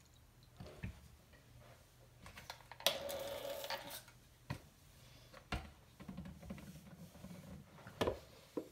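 Handling sounds of a water stone being set in its holder on a tile counter: a few light knocks scattered through, and about three seconds in a one-second hiss of a spray bottle wetting the stone.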